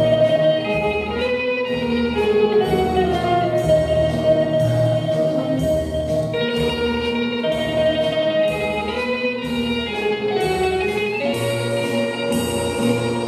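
A small live ensemble of acoustic guitars with a keyboard playing an instrumental piece: long held notes over a steady plucked accompaniment.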